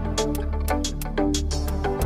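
Background music with a steady beat, about two beats a second, over pitched notes and a steady bass.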